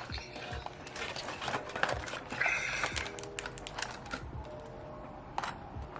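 Soft background music with scattered sharp clicks and taps from objects being handled.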